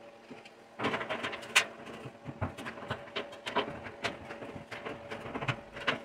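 Hand snips cutting into the thin copper wall of an old hot-water tank: a run of irregular crunching snips and clicks that starts about a second in.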